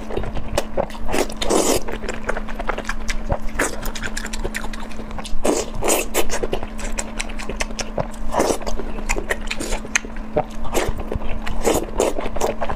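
Close-miked eating for ASMR: a steady run of bites and chewing, with many short crunches and clicks, over a steady low hum.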